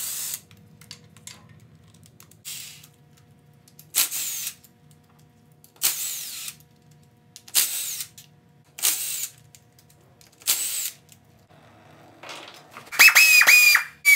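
Hand-held power tool run in short bursts, about eight in all, roughly every one and a half to two seconds, each a brief hissing whir. The last burst, near the end, is the longest and loudest, with a high whine that dips in pitch.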